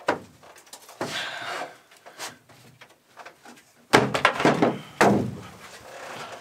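Knocks and thumps of a large plywood panel being shoved and knocked into place against a boat hull. There is a sharp knock at the start and a scraping rustle about a second in. The loudest thumps come in a cluster around four seconds in, with another heavy one about a second later.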